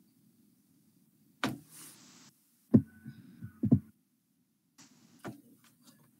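A few sudden knocks over a faint low hum, heard through a video-call microphone: single knocks about a second and a half and three seconds in, a quick double knock near four seconds, and a fainter one near the end.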